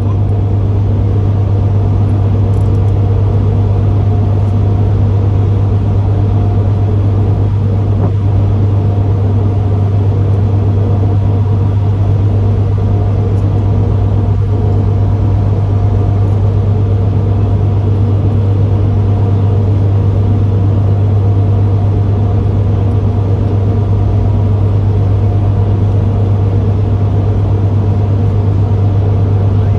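A fishing boat's engine running at a steady speed: an unchanging low drone with a strong low hum.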